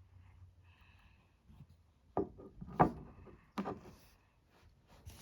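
Handling of small objects on a hard surface: a few sharp knocks and taps, the loudest about halfway through, with lighter clicks and rubbing between them.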